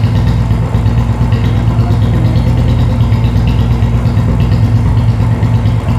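Royal Enfield Bullet's single-cylinder four-stroke engine idling steadily.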